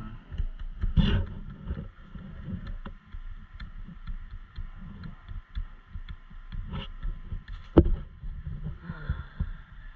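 Irregular low thumps and rumble, with a few sharp knocks: the loudest about a second in and near eight seconds.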